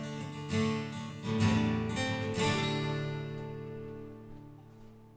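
Background music: strummed acoustic guitar chords, ending on a last chord about two and a half seconds in that rings and fades away.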